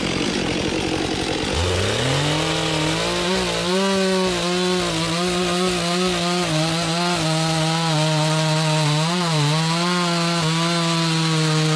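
Two-stroke chainsaw running rough at first, then revving up about a second and a half in and holding a steady high pitch, with a few brief dips.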